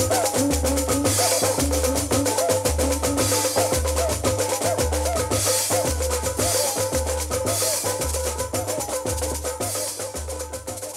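Percussion-driven Brazilian dance-orchestra music from a 1974 LP, with drums and wood block over a pulsing bass line, starting to fade out near the end.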